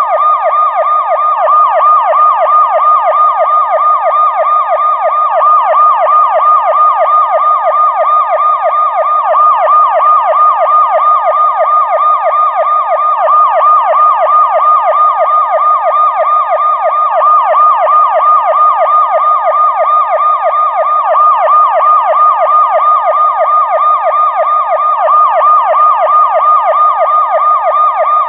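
Police car siren in a fast yelp, its pitch sweeping rapidly up and down several times a second, loud and unchanging throughout.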